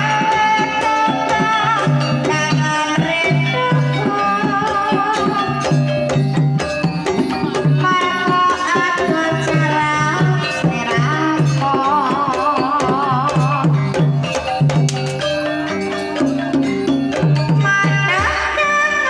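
Banyumasan tayub gamelan music: kendang drums beat a steady repeating pattern under a wavering melodic line, with a female sinden's voice.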